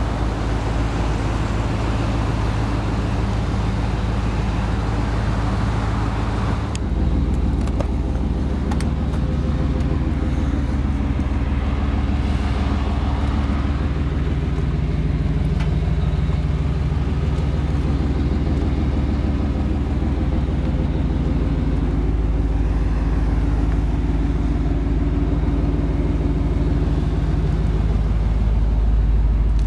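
A vehicle engine idling, a steady low hum, with an abrupt change in its tone about seven seconds in.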